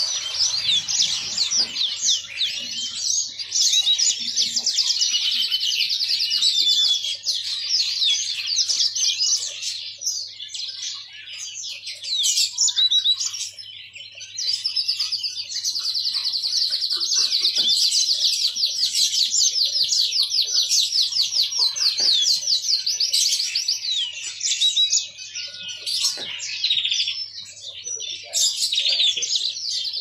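Caged yellow-fronted canary (mozambik) singing a long, rapid twittering song of fast high trills, with brief breaks around ten to fourteen seconds in and again near twenty-five seconds. A faint steady low hum lies under it.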